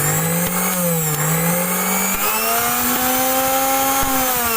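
Mixer grinder's electric motor running at speed: a steady whine over a hiss. Its pitch dips about a second in, then rises and holds higher.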